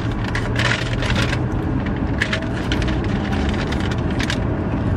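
Steady low rumble of road and engine noise inside a car cabin, with several short crackling rustles of fast-food paper packaging being handled.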